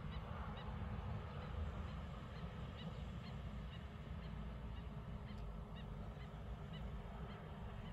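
Birds calling in short high notes, two or three a second, over a steady low rumble.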